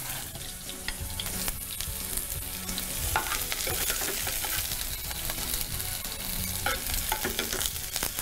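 Chopped onion, carrot, garlic and tomato sizzling as they sauté in oil in a frying pan, with a metal spoon scraping and clicking against the pan now and then as they are stirred.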